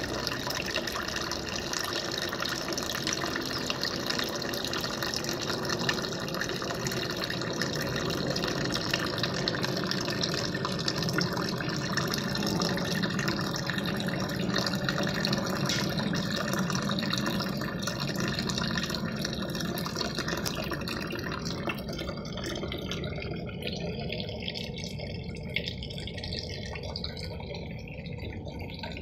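Water running steadily. About three-quarters of the way through, the higher hiss drops away and the flow gets a little quieter.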